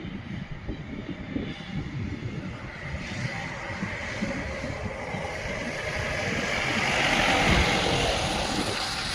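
A vehicle passing by: a steady rushing engine noise that swells to its loudest about seven seconds in and then fades, over an uneven low rumble.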